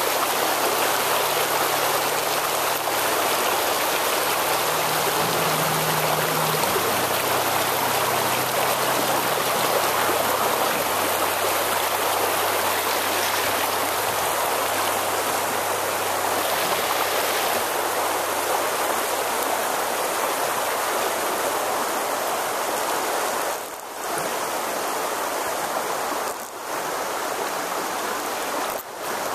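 Shallow river running fast over a rocky riffle: a steady, loud rush of water that dips briefly a few times near the end.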